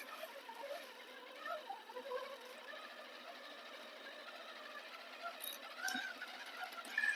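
Electric motor and gears of a Redcat Scout RC rock crawler whining as it drives, the pitch wavering up and down with the throttle. A short knock about six seconds in.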